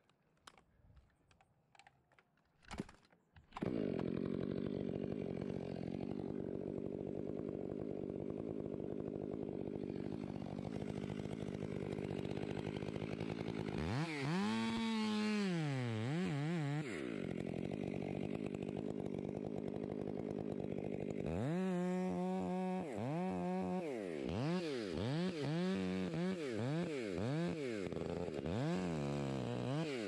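Chainsaw starts up about three and a half seconds in and runs at a steady idle. It is revved once in the middle, then its throttle is blipped over and over, about once a second, for the last third.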